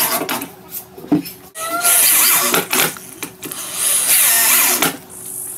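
Corded electric drill driving screws into a wooden leg and frame, running in short bursts of about a second each, with knocks of handling in between.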